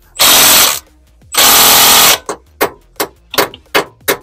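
Cordless impact wrench rattling in two bursts of under a second each, then a hammer striking about three times a second, six blows. The hammering is not freeing the stuck fastener.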